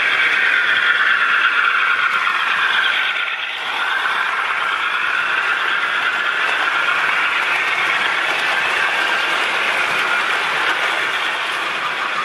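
Model railway diesel locomotive and coaches running along the track past close by, a steady running rumble of wheels and motor. About three and a half seconds in, as it passes, there is a brief dip in loudness and a sweep in tone.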